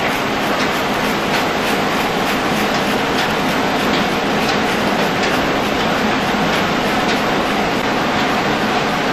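Old stone grist mill running: the millstones grind with a steady rumble under a regular clacking.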